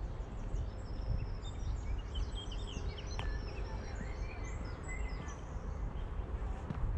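Several small songbirds chirping and twittering, busiest in the middle, over a steady low rumble, with a single sharp click about three seconds in.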